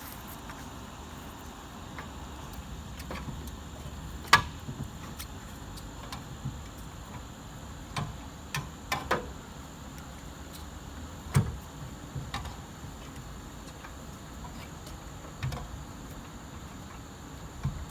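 Scattered sharp knocks and clicks, the loudest about four seconds in and again past the middle, with a cluster in between, over a steady hiss.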